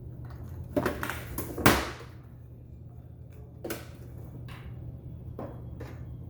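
Clicks and knocks of computer hardware being handled: a quick cluster about one to two seconds in, ending in the loudest knock, then three or four single clicks spread out. A steady low hum runs underneath.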